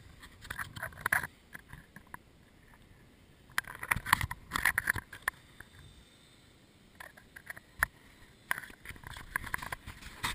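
Close, intermittent scraping and clicking in four short clusters, with quiet gaps between them.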